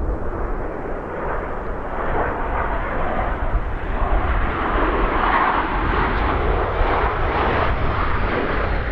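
Aircraft engine noise, swelling to its loudest about five seconds in, over a low rumble of wind on the microphone.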